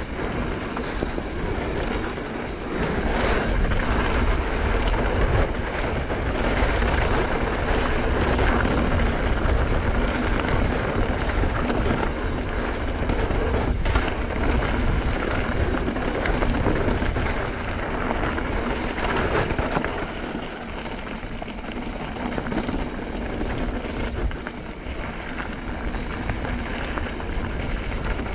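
Mountain bike rolling fast down a dirt singletrack: tyre noise and rattling of the bike over dirt and loose rocks, with a steady low rumble of wind buffeting the microphone.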